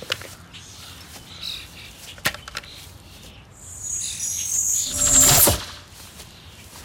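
Birds chirping in the background, with a sharp click about two seconds in. Then a bright, shimmering sparkle sound effect swells for about two seconds as the sword in the stone glints, and cuts off.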